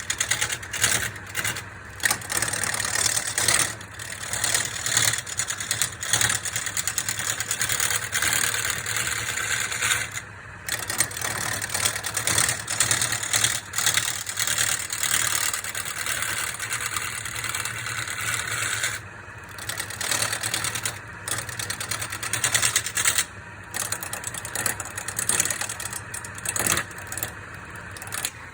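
Wood lathe running with a steady motor hum while a turning tool cuts into spinning root wood, a loud hissing cut broken by short pauses every few seconds as the tool is lifted and set back.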